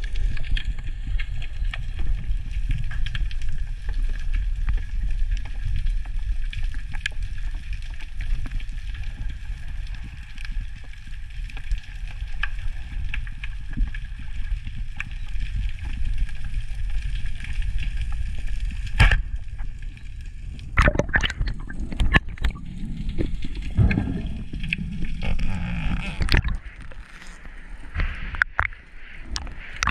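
Underwater ambience picked up by a diver's camera: a steady low rumble of water with a faint steady high tone and scattered clicks. About two-thirds of the way through, louder knocks come in, then sloshing near the end as the camera breaks the sea surface.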